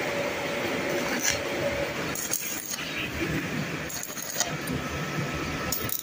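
Stick welding: the electric arc on the electrode rod crackling and sputtering steadily while tacking square hollow steel tube.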